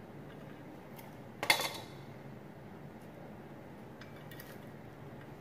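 Kitchen utensils set down at a wooden chopping board: one sharp clink with a short ring about a second and a half in, a faint tick just before it, and a few light knocks near the end.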